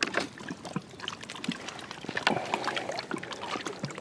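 Water splashing and dripping as a channel catfish is lifted out of a landing net on a lip-grip scale, with scattered clicks and knocks from handling the gear.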